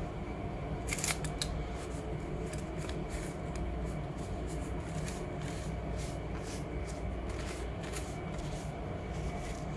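Sheets of paper being handled and rustled on a tabletop: an irregular run of light rustles and clicks, sharpest about a second in, over a steady low background hum.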